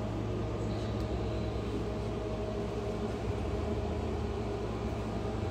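Steady low mechanical hum with a faint high steady tone over it, the room's machinery running without change.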